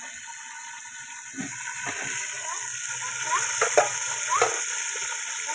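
Onions frying in hot oil in an aluminium pot over a wood fire: a steady sizzle that grows louder about a second and a half in, with a few sharp metal clinks of the ladle against the pot.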